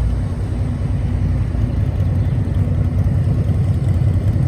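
Motorcycle engine running steadily, a low even rumble.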